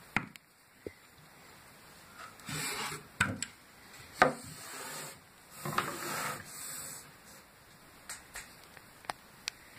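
Plywood carrying case being opened and handled: rubbing scrapes of wood on wood and several sharp wooden knocks, the loudest about four seconds in, then a few light clicks near the end.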